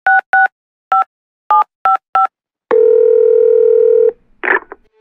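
Telephone keypad touch-tones dialling a number: six short two-tone beeps at an uneven pace. These are followed by one long steady ringing tone on the line, lasting about a second and a half, and then a short crackle as the call connects.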